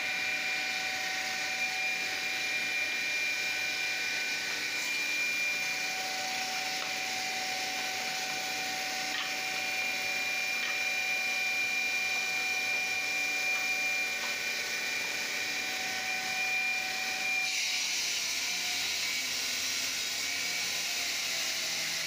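Multi-blade wet tile-cutting machine running with water spray as stone tile strips are fed through its saw blades: a steady whine over motor and spray noise. About two-thirds of the way through the whine stops and a higher hiss is left.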